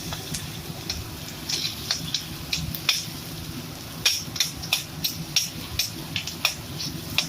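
Food cooking in a pan: irregular sharp pops and clicks, two or three a second, over a steady low hum.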